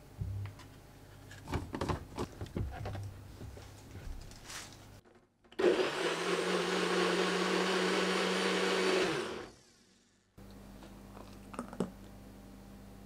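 NutriBullet personal blender running for about four seconds, blending a banana matcha smoothie: the motor cuts in suddenly about halfway through and stops quickly. Before it, a few seconds of light knocks and scrapes as the cup is handled and matcha powder is spooned in.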